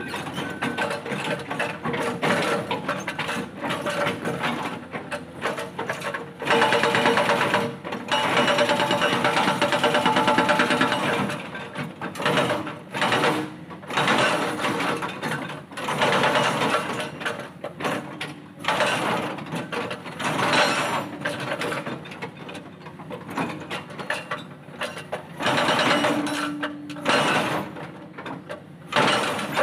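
Hydraulic breaker hammer on a Cat excavator pounding boulders, a rapid hammering in bursts with short stops between them, the longest and loudest burst a few seconds in.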